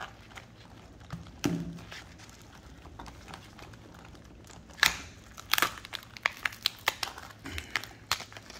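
Shell of a frozen, roe-filled female swimming crab cracking and crunching as it is broken apart by hand in rubber gloves: a few scattered snaps, then a loud crack about five seconds in and a quick run of cracks and crunches after it.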